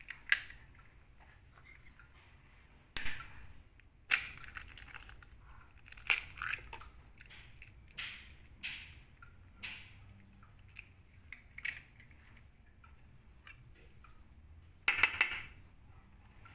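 A hen's egg being cracked against a stainless steel bowl and its shell crushed and pulled apart by hand: scattered sharp cracks and crunches, with a louder burst of crackling near the end.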